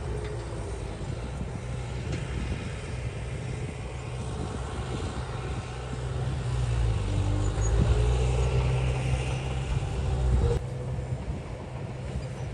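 Heavy earthmoving machinery's diesel engine running steadily. It gets louder about halfway through, with a faint gliding whine and a clank, then drops back suddenly near the end.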